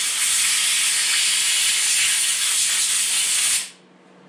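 Compressed air hissing from a blow gun as it blasts dust out of the clutch side of a Stihl MS 250 chainsaw: one loud, steady hiss that cuts off suddenly a little before the end.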